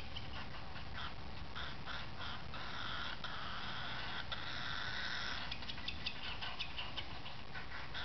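Baby cockatiel, about five weeks old, making its machine-like food-begging call while being spoon-fed. The call comes as rapid rasping pulses, with one longer unbroken rasp in the middle.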